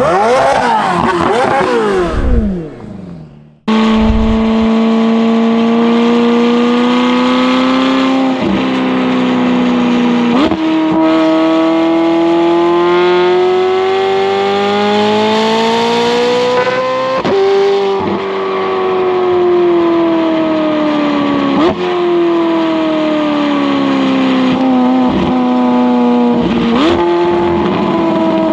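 McLaren 720S twin-turbo V8 running through a non-valved titanium double X-pipe exhaust with catless downpipes. First the car is heard going past, its pitch falling as it fades. Then, from a microphone on the bumper near the exhaust, the engine pulls while driving, its pitch rising and falling with about five sharp jumps at gear changes.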